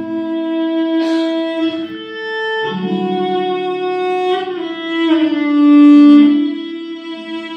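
A violin playing a slow instrumental melody of long held notes over a sustained lower note.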